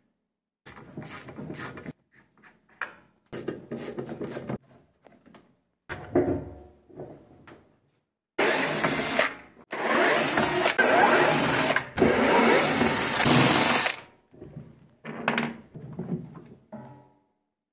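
Short bursts of handling noise on a plastic washing-machine tub, then about five seconds of loud, steady power-tool running in three stretches with brief pauses between them, as the bolts holding the tub halves together are undone.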